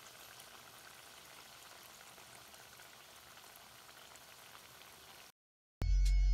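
Banana flower fritters deep-frying in hot oil, a faint, steady sizzle and bubbling. It stops about five seconds in, and loud background music with a beat starts just before the end.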